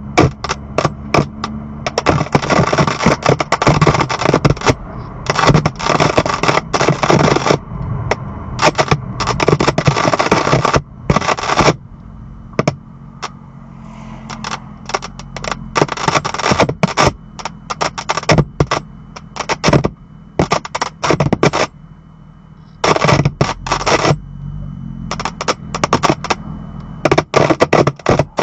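Loud crackling and screeching static from the audio speakers of a 2018 BMW M2, in irregular blasts and rapid clicks that cut in and out, over a steady low hum. It is the sign of a faulty audio system, which the owner puts down to the amplifier.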